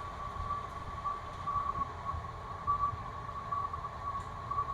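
Room tone: a steady high-pitched whine with a low rumble underneath.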